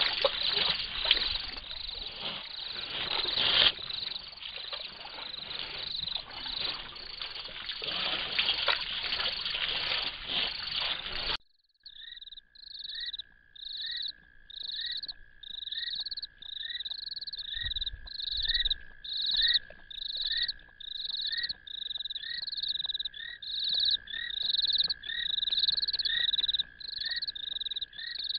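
A dense night chorus of frogs and insects, with water splashing and trickling as elephants drink. About eleven seconds in it cuts off abruptly and gives way to a sparser frog chorus: a high call repeating about one and a half times a second over a steady lower trill.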